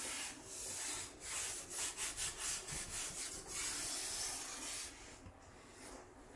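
A hand rubbing and sliding over the matte-finish body of a Batmobile replica, a dry scuffing in uneven strokes that dies away about five seconds in.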